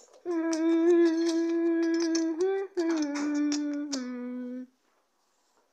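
A voice humming three long held notes, each a little lower than the one before, with small clicks over the first half.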